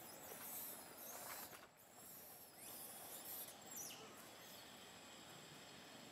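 Faint, thin high-pitched squeaks of a baby macaque crying, with soft rustling in the first few seconds.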